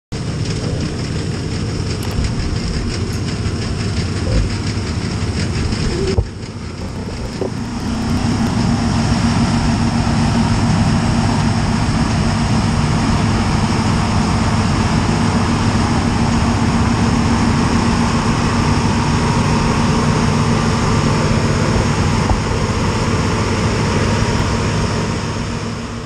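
New Holland CX8040 combine harvester running hard while harvesting wheat: a loud, steady drone of engine and threshing machinery close by. The sound drops suddenly about six seconds in, then builds back up over the next two seconds and holds steady.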